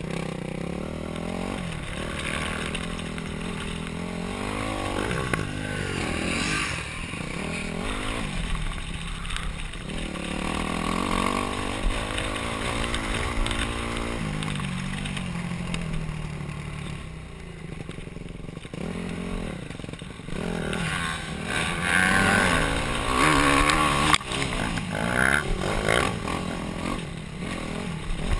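Yamaha YZ250F four-stroke single-cylinder dirt bike engine, heard from the rider's helmet, revving up and down over and over as the throttle is opened and closed off-road. The revving gets louder in the last several seconds.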